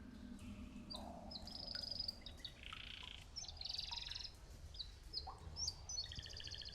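A canary chirping and trilling in a string of short high phrases, ending in a fast trill, over a faint low rumble.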